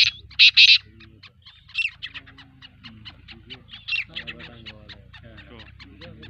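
Black francolins calling: a few loud, harsh calls in the first second, then many short, quick chips throughout, with further calls about two and four seconds in.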